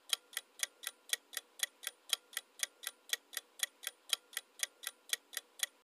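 Clock-ticking sound effect running under a quiz's answer timer: even, sharp ticks at about four a second, stopping near the end.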